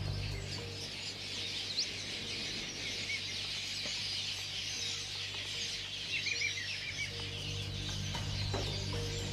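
A dense chorus of many wild birds chirping and calling at once, short high chirps and quick glides overlapping throughout, over a steady low hum.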